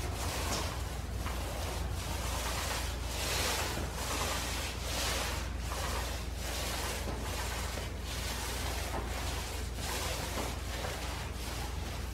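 Paint roller on an extension pole rolling epoxy coating across a concrete garage floor: repeated swishing strokes, a little more than one a second, over a steady low hum.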